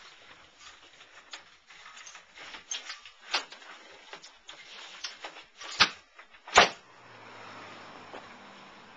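Light knocks and shuffles of someone walking through a house, then two loud bangs close together about six seconds in as a glass outer door is pushed open and swings back. A faint steady hiss follows.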